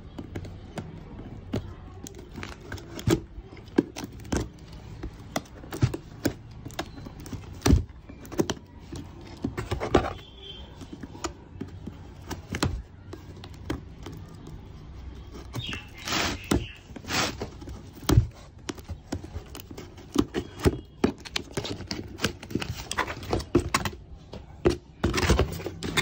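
Small scissors cutting through the tape along the seams of a cardboard carton, in irregular clicks and snips, with knocks and scrapes of the cardboard being handled. Longer scraping sounds come about two-thirds of the way in and again near the end, as the box flap is pulled open.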